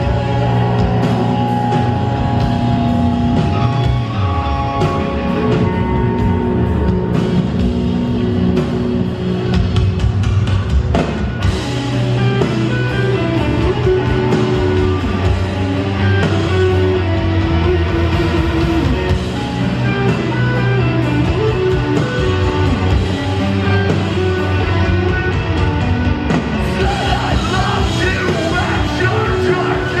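Hardcore band playing live, loud and steady: distorted electric guitars, bass and drums with a singer's vocals over them.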